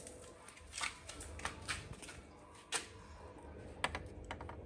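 About ten light clicks and taps at irregular intervals, the sharpest a little past the middle.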